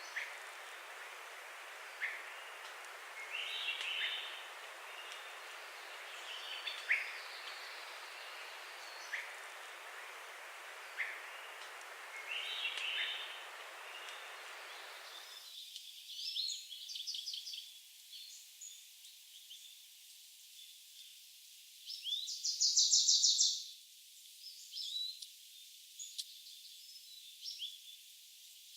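Forest birds chirping and calling, with short scattered chirps throughout and a loud, rapid trill near the end as the loudest sound. A steady rushing noise underlies the first half and cuts off abruptly about halfway through.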